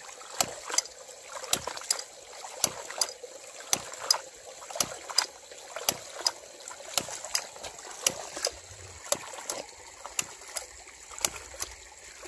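Homemade hydraulic ram pump running: its valves slam shut in a pair of sharp clacks about once a second. Water spurts and splashes from the pump between the strokes.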